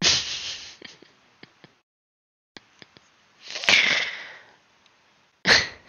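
A person's breath sounds: a breathy exhale at the start, a sharper sniff-like breath about two-thirds of the way through, and another breath just before the end, with a few faint clicks in between.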